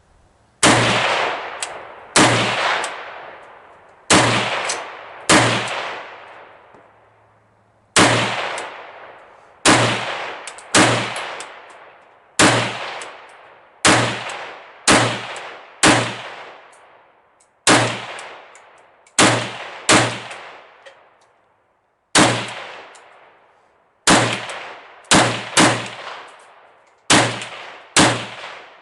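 Zastava M70 ZPAP AK-pattern rifle in 7.62x39mm fired semi-automatically, about twenty single shots at an uneven pace of roughly one a second, with a brief pause near the middle, each shot ringing out in a trailing echo.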